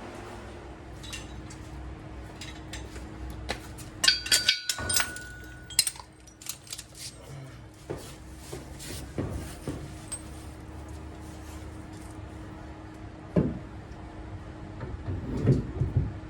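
Metal tools and parts clinking and clattering as they are handled and set down, with a flurry of ringing clinks about four seconds in and a few heavier knocks near the end, over a steady low hum.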